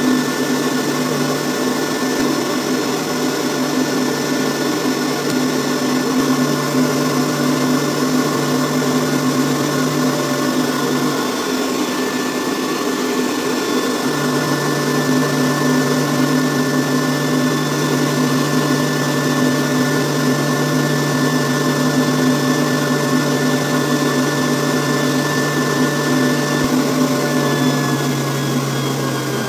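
Homemade electric air blower running steadily, its motor humming and whining under the rush of air out of its pipe, which is holding a plastic ball up in the stream. The high whine falls slightly in pitch near the end.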